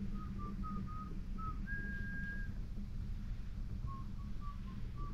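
A turban shell grilling in its own shell on a gas camping stove gives off a string of short, high whistles and one longer held whistle as steam escapes from the boiling juices. The SOTO Regulator stove's burner rushes steadily underneath.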